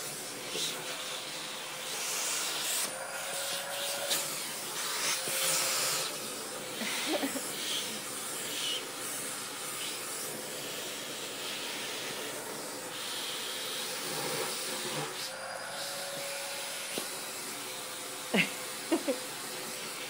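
Vacuum cleaner running steadily while its nozzle is worked over a cat's fur, the suction hiss shifting as it moves. Near the end come three short, loud sounds.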